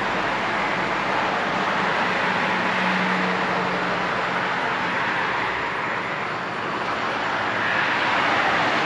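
Road traffic: cars driving past, a steady hiss of tyres and engines that swells as each vehicle goes by, loudest near the end.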